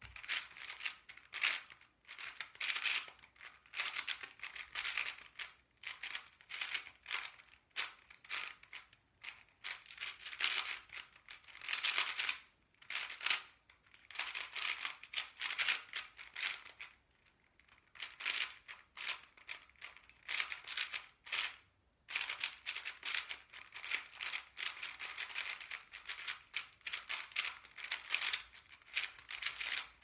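Angstrom Aosu GTS2 M 4x4 speedcube being turned fast: a dense run of plastic clacks and rattles from the turning layers, broken by a few short pauses of about a second.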